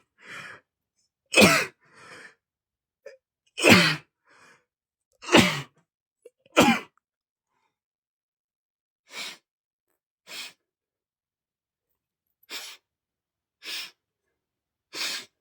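A man sneezing in a fit set off by dust: four loud sneezes about every second and a half, each ending in a falling cry. These are followed by five shorter, quieter bursts spaced a second or more apart.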